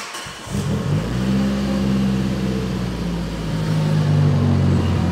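Mitsubishi Lancer Evolution's freshly rebuilt turbocharged 4G63 inline-four finishing its start about half a second in, then idling steadily with the lumpy lope of its Brian Crower Stage 3 276 cams, now settled at a normal idle after tuning adjustments to the map.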